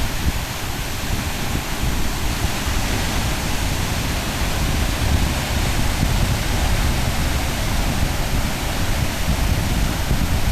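Wind buffeting the microphone over a steady rush of ocean surf.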